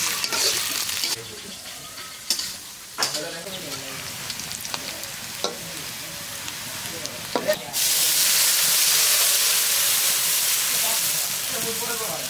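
Food sizzling in hot oil in a cooking pan while being stirred, with a few sharp clicks of the utensil against the pan. About eight seconds in the sizzle suddenly gets much louder and stays loud.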